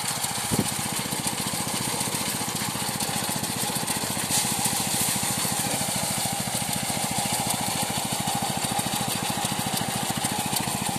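Small engine of a power rice thresher running steadily at a fast, even firing rhythm.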